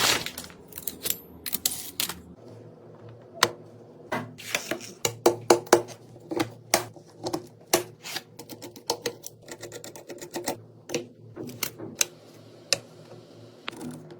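Irregular clicks and taps of computer parts being handled and fitted together, some sharp and loud, over a faint steady hum.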